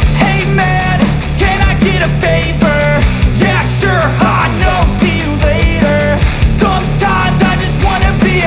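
Rock music with a singing voice over a steady, driving beat.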